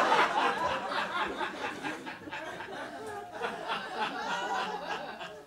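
Audience laughing, loudest at the start and dying away over several seconds before fading out near the end.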